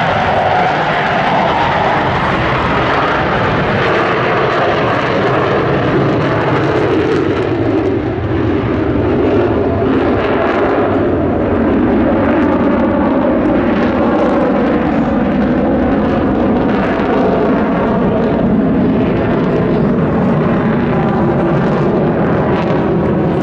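Jet engines of four Blue Angels F/A-18 Hornets flying in diamond formation: a loud, steady jet roar that slowly drops in pitch.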